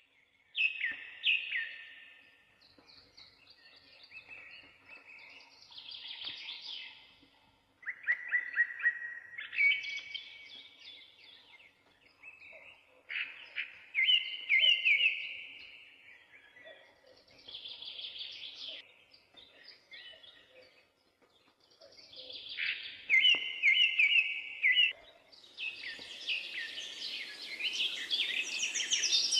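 Birdsong: a songbird singing short phrases of quick repeated whistled notes, a phrase every few seconds. From about 25 seconds in, a steady hiss comes up beneath the song.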